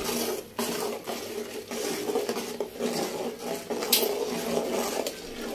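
Metal spoon stirring in a large aluminium pot of boiling water, scraping and clinking against the pot, with one sharp clink about four seconds in.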